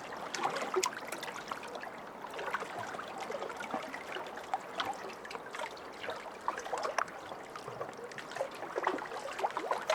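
Small lake waves lapping and splashing against a shore, a continuous irregular wash of little water slaps that swells slightly near the start and near the end.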